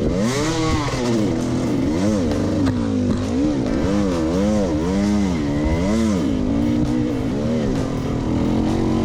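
Off-road dirt bike engine revving up and falling back over and over, about once a second, as the rider works the throttle up a steep hill climb.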